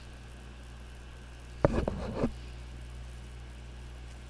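A brief clatter of sharp clicks and knocks, small metal hand tools being handled, starting with one sharp click about a second and a half in and lasting well under a second, over a steady low hum.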